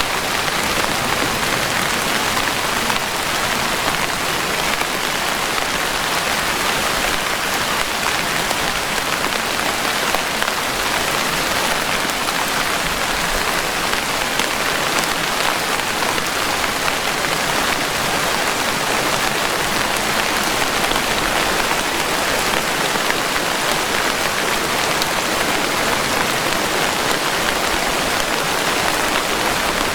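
Steady rain falling, a dense, even hiss of raindrops that holds level throughout with no thunder.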